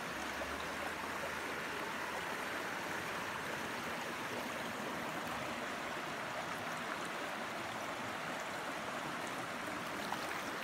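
Small rocky creek running over stones and riffles: a steady rush of flowing water.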